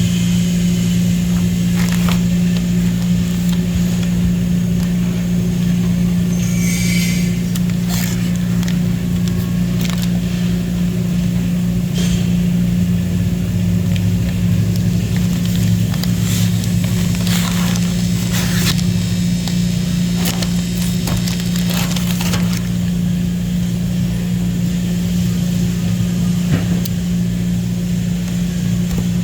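A steady low hum holds one pitch throughout, with scattered crackles and rustles of adhesive roof tape and coax cable being handled and pressed down.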